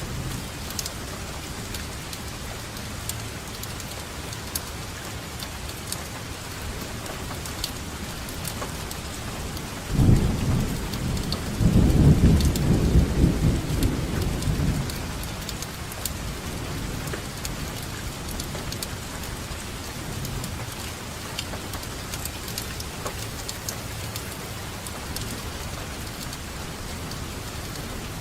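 Steady rainfall with individual drops ticking, and a roll of thunder that breaks in suddenly about ten seconds in, swells into a deep rumble and fades away over several seconds.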